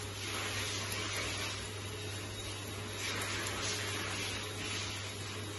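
Grooming scissors snipping a Welsh Terrier's cheek hair in a few soft cuts, over a steady hum and hiss of machine noise in the room.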